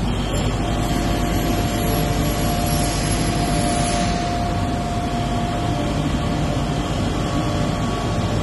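Machinery running with a steady rumble and hiss, and a faint steady whine that fades about halfway through.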